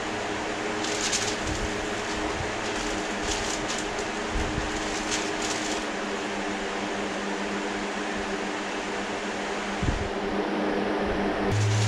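Masking paper rustling in a few short bursts as it is pushed and folded into a car's engine bay, over a steady mechanical hum.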